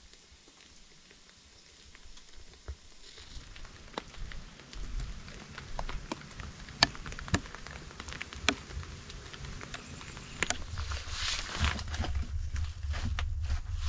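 Wood fire crackling in a clay stove's firebox, with scattered sharp pops that grow louder and more frequent about three seconds in. Near the end, firewood knocks and scrapes as logs are pushed into the firebox.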